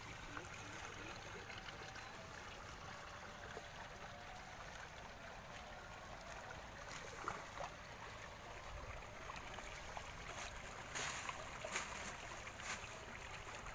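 Water trickling steadily in a small ditch stream, with a few brief sharp rustles near the end.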